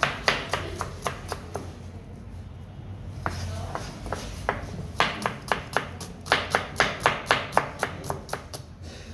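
Chef's knife slicing a red onion on a plastic cutting board: quick, even knocks of the blade on the board, about four a second, with a pause of a couple of seconds in the middle.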